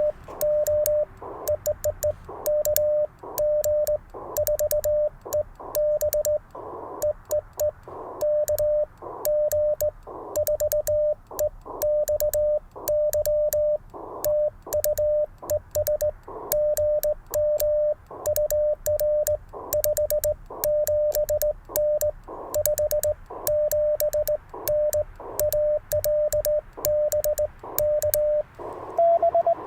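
Morse code sent on a sideswiper (cootie) key, heard as the Icom IC-705's sidetone: one steady mid-pitched beep keyed on and off in dots and dashes, with a faint click at each keying. Near the end a slightly higher-pitched beep takes over.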